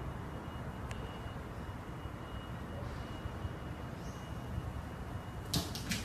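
Steady low background rumble and hiss with a faint high whine, a single sharp click about a second in, and a short scuffle of noise near the end.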